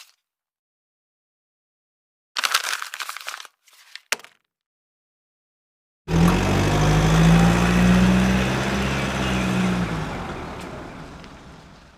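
Separate sound effects with silence between them: a short crackling, crunching burst, then a loud engine-like drone with a strong low hum that starts suddenly, holds for about four seconds and fades away.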